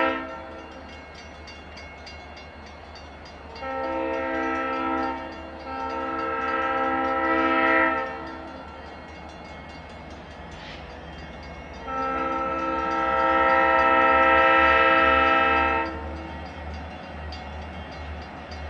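Union Pacific diesel locomotive's air horn sounding as it approaches. The end of one blast comes at the very start, then two blasts about four and six seconds in, then a longer, louder blast from about twelve to sixteen seconds.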